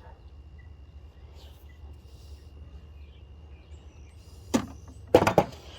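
Old hand tools being handled: a single sharp click about two thirds of the way in, then a short rattle of knocks near the end as a vintage bit brace is set down and another taken up.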